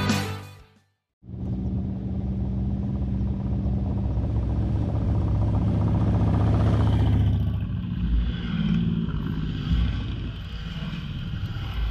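Rock music breaks off right at the start. Then a group of motorcycles, Harley-Davidson V-twin cruisers among them, rides up and passes close by with engines running. The sound grows to its loudest about seven seconds in as the first bikes go by, and more bikes follow.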